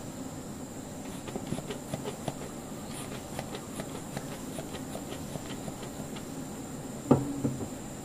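Honeybees buzzing steadily over an open hive, with soft puffs from the bee smoker and many light clicks and taps. About seven seconds in comes a sharp thump, then a smaller one, as the metal smoker is set down on the wooden table.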